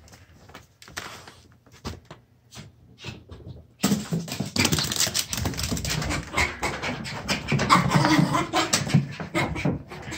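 A Yorkshire terrier panting hard during after-bath zoomies. There are light scattered clicks for the first few seconds, then a loud, dense stretch begins about four seconds in and stops just before the end.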